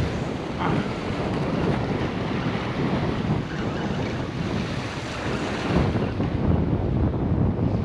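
Small waves washing onto the beach, with wind buffeting the microphone.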